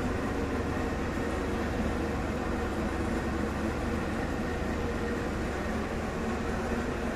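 Steady low mechanical hum with an even rushing noise over it, unchanging throughout.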